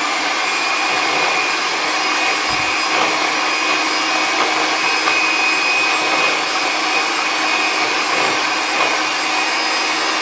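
Electric hand mixer running steadily at one speed with a constant motor whine, its twin beaters whisking eggs and sugar in a plastic bowl until the mixture turns pale.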